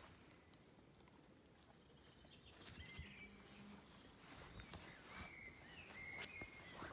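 Near silence: quiet outdoor ambience with faint bird chirps now and then, a few in the middle and near the end.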